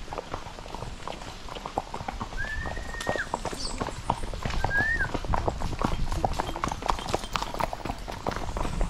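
Hooves of several horses clopping at a walk on a packed dirt trail, an irregular run of soft knocks. Two short high whistles are heard, about two and a half seconds in and again near five seconds.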